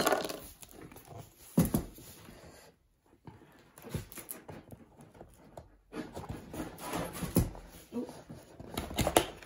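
Handling of a cardboard box: flaps and inner cardboard dividers being moved and packaged contents shuffled, with rustling and a few sharp knocks. There is a loud knock about a second and a half in, and a busier run of knocks near the end.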